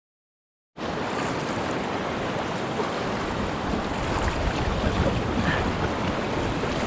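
Steady rushing of river rapids, starting abruptly after about a second of dead silence.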